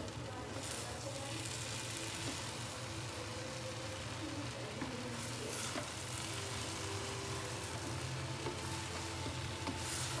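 Wooden spatula stirring and tossing vermicelli in a stainless steel pan over the gas flame, with a steady sizzle and occasional scrapes of the spatula, over a steady low hum.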